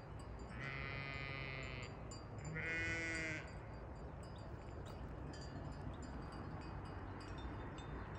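Sheep bleating: two long calls, the second one louder, about a second apart.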